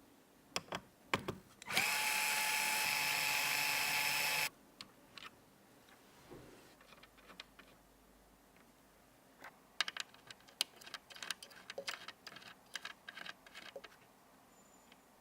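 A small electric screwdriver runs steadily for about two and a half seconds, spinning up at the start and cutting off abruptly, likely driving a screw into the PC case or its parts. Before and after it come light clicks and taps of small computer parts being handled and fitted.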